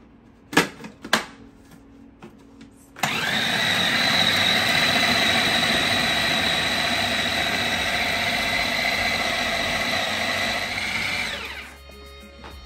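Two sharp clicks as the food processor's lid is fitted, then its motor runs steadily with a whine for about eight seconds, chopping raw chicken pieces, fried onion and spices into a kebab paste, and spins down near the end.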